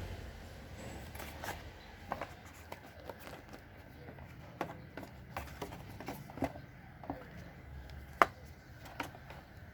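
Handling of Bluedio T7 headphones and their packaging: irregular light clicks and taps, with one sharper click about eight seconds in.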